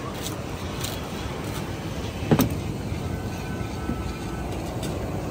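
Steady low rumble of street traffic, with one sharp knock a little over two seconds in.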